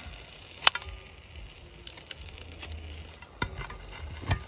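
The back of a knife scraping burnt, crispy bread crust off the edges of a hot cast-iron hobo pie iron. There is a sharp click of the blade striking the iron under a second in, and a few more knocks near the end.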